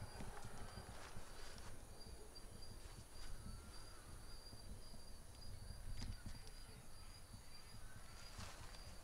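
Night insects chirping, a high, even, pulsing trill with fainter chirps beneath it. Under it, a few footsteps and rustles from people walking through undergrowth, with low handling rumble on the microphone.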